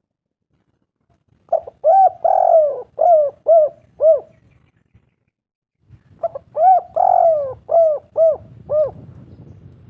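Spotted dove cooing: two phrases of about six arching coos each, a longer drawn-out note near the start of each, the second phrase beginning about six seconds in.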